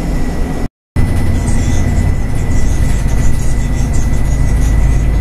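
Inside a moving bus: steady low engine and road rumble, with a faint steady high tone over it. The sound cuts out briefly about a second in.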